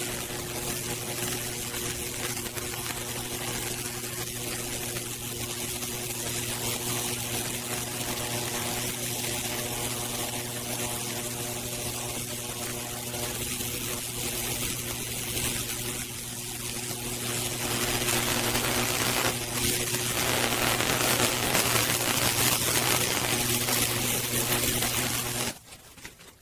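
High-voltage fractal burning: electric arcs crackle and sizzle as they burn branching paths through a cedar slab, over a steady electrical hum. The crackling grows louder for the last several seconds, then everything cuts off suddenly near the end.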